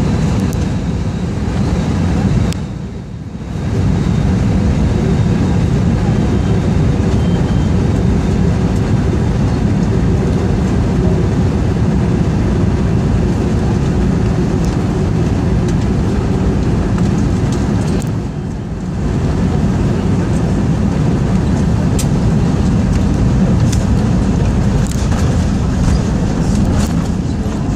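Cabin noise inside an Airbus A321 airliner on final approach: a steady low rumble of engines and airflow, dipping briefly twice. A few faint clicks and rattles come near the end as the aircraft nears the runway.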